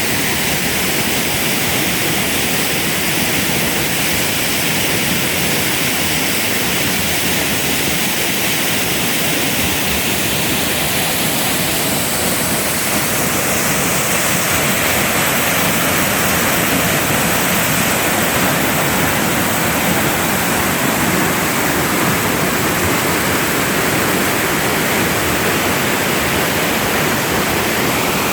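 Waterfall pouring into its pool, heard from right under the falls: a loud, steady rush of water.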